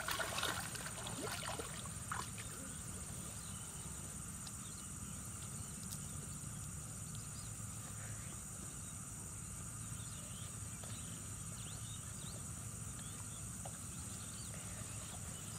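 Rural outdoor ambience: a steady high-pitched insect drone with a few short bird chirps scattered through, over a low steady hum.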